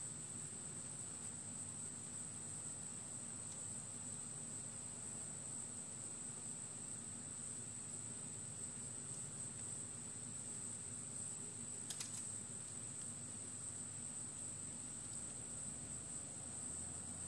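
Faint steady ambience: a constant high-pitched tone over a low hum, with one short click about twelve seconds in.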